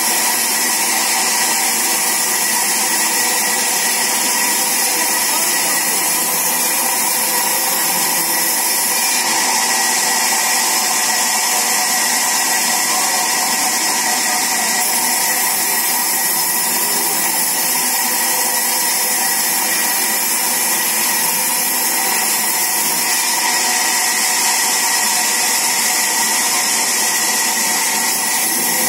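Large vertical band saw running steadily as a log is fed through it on the mill table: a constant high-pitched hiss over a hum of several steady tones.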